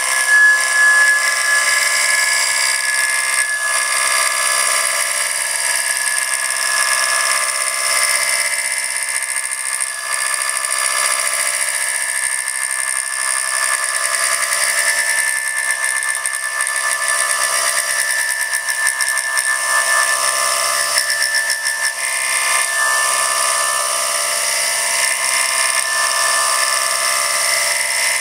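CNC milling machine spindle running a custom home-made thread mill through a thread-milling cut: a steady high-pitched machine whine with several steady tones.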